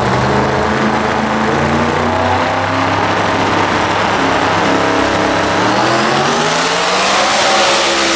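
Drag-racing car's engine at full throttle down the strip, starting abruptly and held loud, its pitch wavering and then climbing in the second half.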